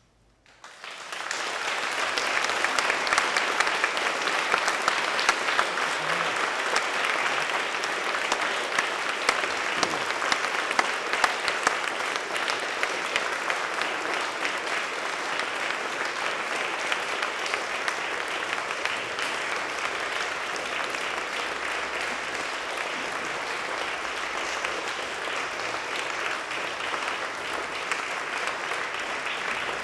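Audience applauding. The clapping breaks out suddenly about a second in, after near silence, and carries on steadily, easing a little toward the end.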